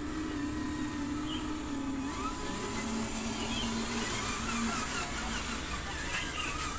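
Electric drive motor and gearbox of a radio-controlled dump truck whining steadily as it drives, the whine dropping lower in pitch about two and a half seconds in.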